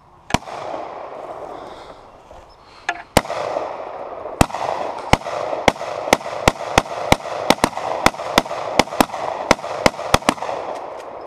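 Rifle gunfire: a single shot, another about three seconds in, then a fast string of about twenty shots at two to three a second, each followed by echo, ending about a second before the end.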